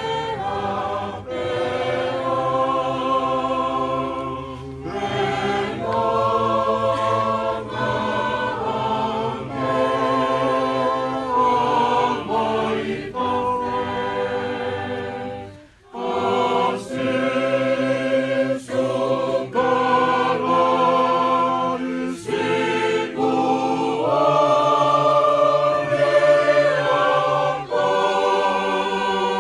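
Tongan choir singing a hymn a cappella in several-part harmony, with long held chords and one short break for breath just before halfway.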